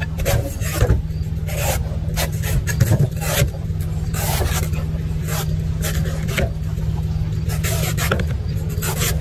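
Large knife slicing through the fibrous husk of a young green coconut, a quick scraping cut every second or so, over a steady low hum.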